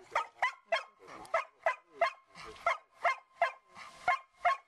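Dog barking in a quick, even series of short barks, about three a second.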